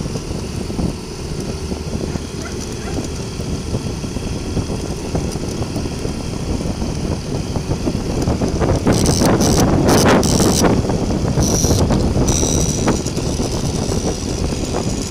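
Motorcycle riding sounds heard from the bike: the engine running along under a steady rush of road and wind noise, which grows louder and rougher for a few seconds past the middle.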